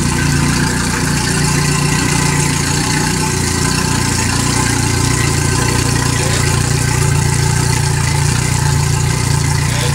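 Yamaha 70 hp fuel-injected four-stroke outboard idling steadily in neutral. It is running out of the water, with its exhaust coming straight out through the propeller, which makes it noisier than it would be in the water.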